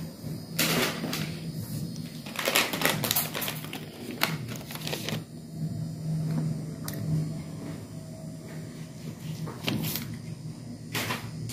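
Irregular short clicks and rustles, like things being handled, over a steady low hum.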